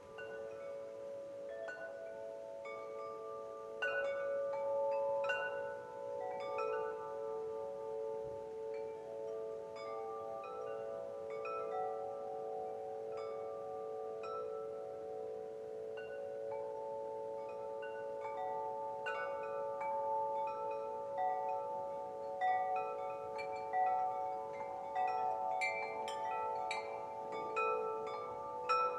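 Wind chimes ringing: many overlapping struck notes, each with a long sustained ring, with sharper and more frequent strikes near the end.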